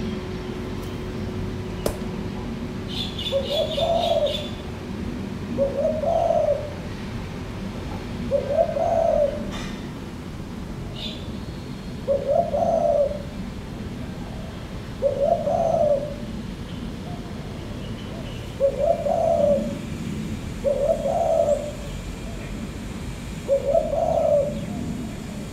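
Spotted dove cooing: a low, slightly rising note of about a second, repeated every two to three seconds. A brief burst of high chirps from a small bird comes about three seconds in.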